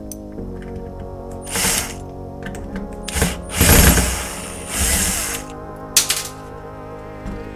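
Background music, with several short bursts of whirring from the micromotor inside an angle-grinder gearbox spinning its spindle, each about half a second long.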